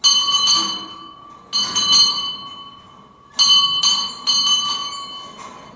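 A bell struck several times, often two strikes in quick succession, each one ringing on with a clear tone that fades slowly between strikes.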